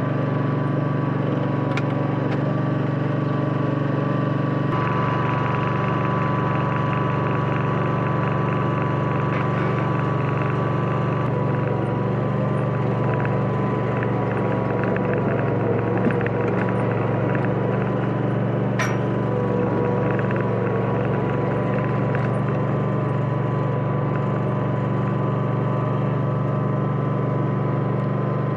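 Husqvarna ride-on lawn mower running steadily under way, engine and cutting deck chopping fallen autumn leaves. The tone shifts slightly about five seconds in, and there is one sharp click about two-thirds of the way through.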